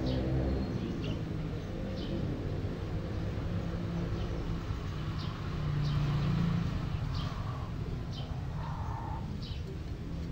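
Low engine rumble of vehicles in the background, swelling about six seconds in, with a few short high bird chirps scattered through it.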